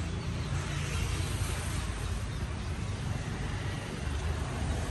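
A motor vehicle running steadily, a constant low rumble with road noise.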